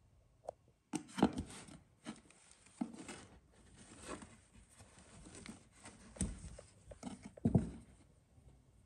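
Clothing and plastic packaging rustling as garments are handled and lifted out of a cardboard box, with a few sharp knocks against the box, the loudest about a second in and near the end.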